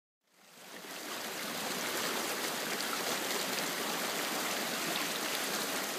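A small creek running, a steady rush of flowing water that fades in about half a second in.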